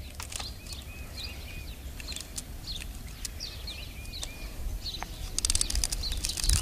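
Small songbirds chirping, with repeated short sweeping notes and some brief held whistles, over a low outdoor rumble. A quick run of sharp clicks comes near the end.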